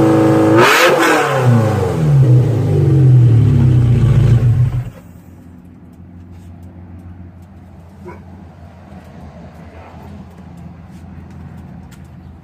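A 348 V8 running through catalytic converters and an X-pipe with no mufflers: revs held high and steady, then let fall back in steps over about four seconds. About five seconds in the loud engine note cuts off abruptly, leaving a much quieter low hum.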